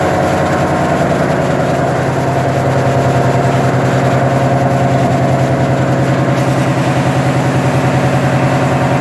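Ship's engine-room machinery running steadily, a loud drone with a fast, even pulse that gets a little louder about two and a half seconds in.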